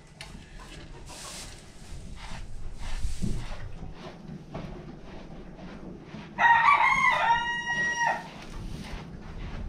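A rooster crows once: a single loud call of almost two seconds, starting about six and a half seconds in. Before it come softer rustling and brushing noises from a horse being groomed in its stall.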